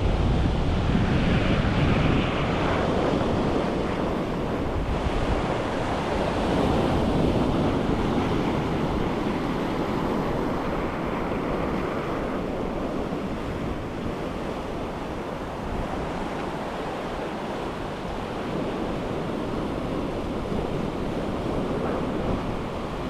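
Ocean surf washing in steadily, with strong wind buffeting the microphone in a low rumble.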